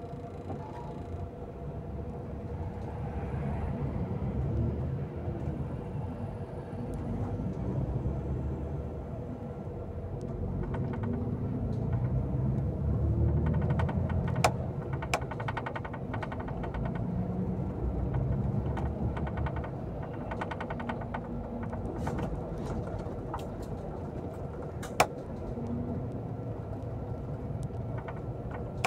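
Vehicle on the move: a low engine and road rumble that swells and eases, with bouts of light rattling and two sharp clicks, one about halfway through and one near the end.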